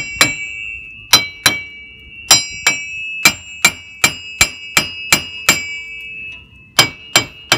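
Hammer striking the steel wheel hub assembly of a GM 4x4 truck, about sixteen sharp ringing metal blows at two to three a second with a short pause near the end. The hub is being knocked loose from the steering knuckle with its bolts already out.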